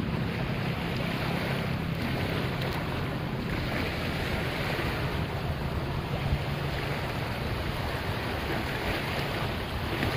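Small waves washing onto a rocky, pebbly shore, swelling every few seconds, with wind rumbling on the microphone.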